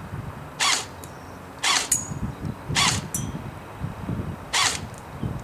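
DPMS Panther Arms M4 airsoft electric gun firing single shots on semi-auto: four short mechanical shots about a second apart, with a longer gap before the last.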